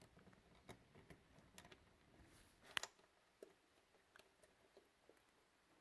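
Faint, scattered clicks and taps of a cable and its small plastic connector being handled inside a PC case, with one sharper click almost three seconds in, as the multi-card reader's cable is fitted to a USB header.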